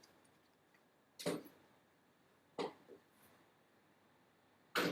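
A few sharp, separate clinks and knocks of hand tools being handled, most likely sockets and tools rummaged through while searching for the right size.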